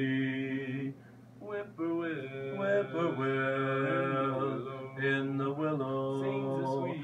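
Male voices singing unaccompanied in harmony, holding long wordless notes, with a brief pause for breath about a second in.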